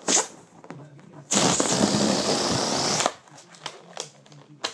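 Air rushing out of a rubber balloon as it deflates: a loud, even hiss that starts about a second in and lasts nearly two seconds. A brief sharp sound comes right at the start.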